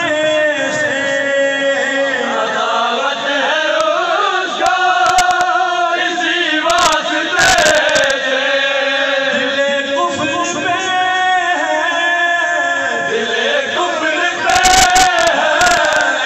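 A man sings a devotional chant through a microphone and PA, with men of the crowd joining in chorus. Clusters of sharp strikes cut in about five and seven seconds in, and again near the end.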